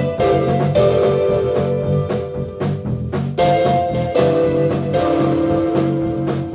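Improvising rock band playing live: a drum kit keeps a steady beat, about two hits a second, under held guitar chords.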